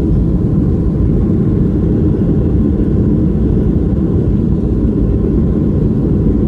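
Airliner cabin noise during the landing roll, ground spoilers raised: a steady, deep rumble of the engines and the wheels on the runway.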